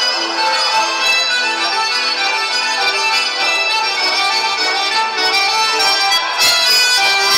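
Chamamé music played by accordions with guitar accompaniment, at a steady dance rhythm.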